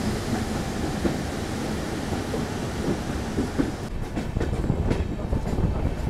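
Goa Express passenger train running on the track, heard from an open coach door: a steady low rumble with irregular knocks from the wheels and coaches.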